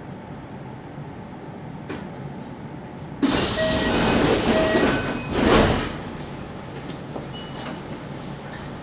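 Kintetsu 1031-series commuter train's steady low hum, broken about three seconds in by a sudden loud hiss lasting nearly three seconds, with two short pairs of tones in it, before the hum returns.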